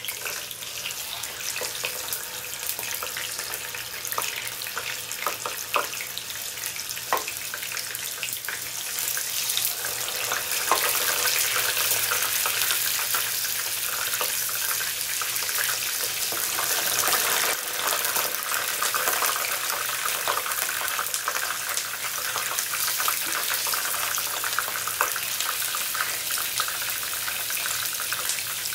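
Tofu frying in hot cooking oil in a frying pan: a steady sizzle with scattered pops and crackles, growing louder about ten seconds in.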